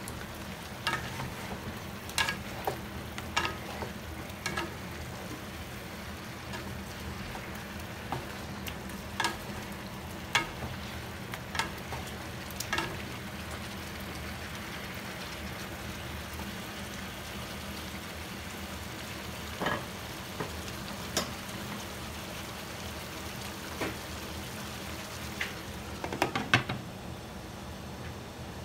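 Pork belly cubes frying in a pan while a wooden spatula stirs them, with scattered knocks and scrapes of the spatula against the pan. Near the end there is a short clatter as a glass pot lid is set on.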